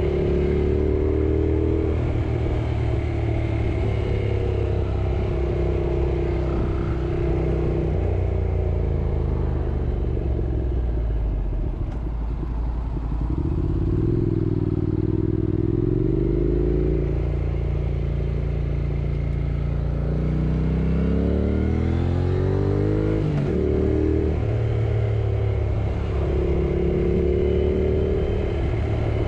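Yamaha R6 sport bike's inline-four engine running under way at steady revs, easing off about ten seconds in, then rising in pitch as it revs up and shifting up a gear a little past twenty seconds in.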